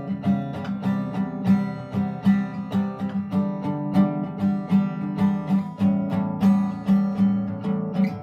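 Solo acoustic guitar playing an instrumental passage with no voice, its notes struck in a steady, even rhythm of about two accents a second.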